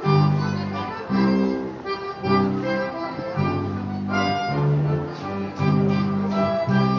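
Bavarian folk dance music, chords held over a strong bass note that comes about once a second.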